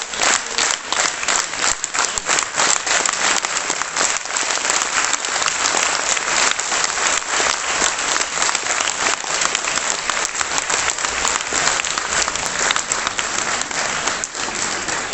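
Theatre audience applauding: many hands clapping together, steadily, the separate claps blending into a denser, more even clatter as it goes on.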